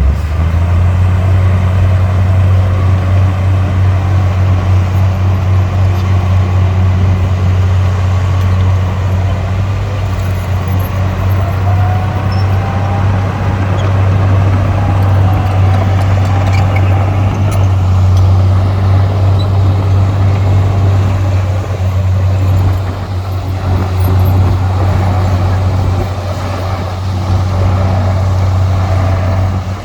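Heavy diesel machinery running: a loud, steady low engine drone that sets in suddenly at the start, with a faint rising whine around the middle.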